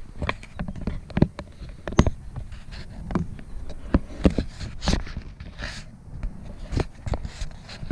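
Irregular clicks, taps and rustles of an action camera and its mount being handled and repositioned right at the microphone.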